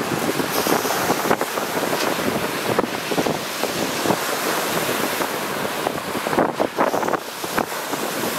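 Lake Superior waves breaking on a rocky, pebbly shore, a continuous loud wash of surf, with wind buffeting the microphone.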